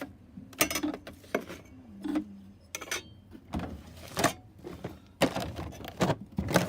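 Irregular clicks and knocks of hand tools being handled and set down in a metal tool chest drawer, about a dozen sharp strikes with short pauses between.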